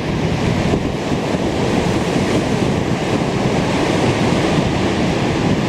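Strong wind buffeting the microphone, a steady rough rush, mixed with waves breaking on the lake shore.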